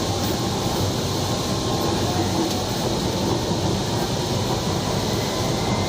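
Inside a Kochi Metro train car running between stations: the steady rumble and hum of the train in motion.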